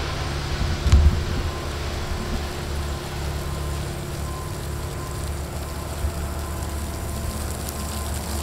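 Irrigreen digital sprinkler head spraying several water jets onto the lawn, a faint even hiss and patter, over a steady low rumble. There is a soft thump about a second in.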